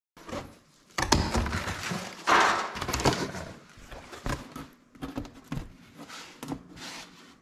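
A stiff cardboard template being handled against a welded sheet-steel bucket shell: rustling and scraping of cardboard with several knocks and thunks, loudest about two seconds in, then lighter taps and rustles.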